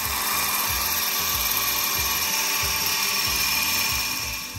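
Electric hand mixer running steadily at speed, its twin beaters whipping egg whites in a stainless steel bowl; the motor sound fades out near the end.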